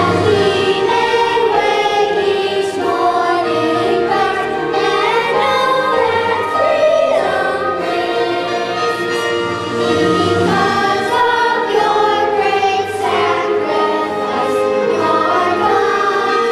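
A group of children singing a song together as a choir, with musical accompaniment.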